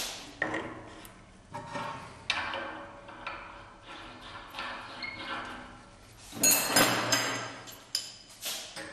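Metal clinks and knocks with a short ring, from an abrasive flap disc and its clamping parts being fitted onto the spindle of a burst-test chamber. The loudest clatter comes about six and a half seconds in.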